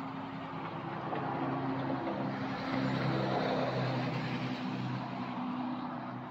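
Low engine hum of a motor vehicle, growing louder around the middle and easing off near the end.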